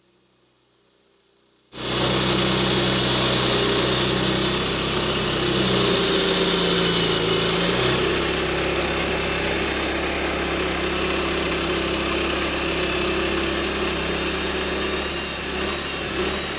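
Near silence for about two seconds, then an engine cuts in abruptly and runs steadily, with a slight change in its pitch about six to eight seconds in.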